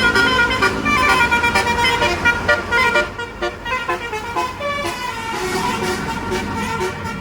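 Bus telolet 'basuri' multi-tone horn playing a melody: a quick run of short notes for about three seconds, then slower, sparser notes.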